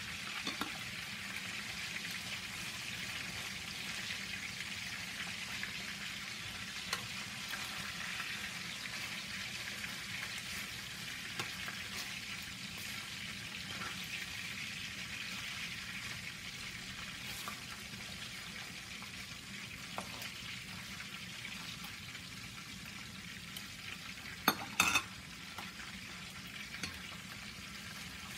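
Fish pieces frying in oil in a nonstick pan: a steady sizzle, with light scrapes and taps of a spatula turning them and two sharp clacks near the end.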